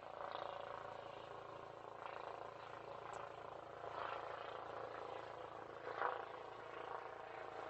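Police helicopter flying overhead, picked up by a Ring doorbell's microphone: a steady, faint drone made of many even tones, with brief louder swells about two, four and six seconds in.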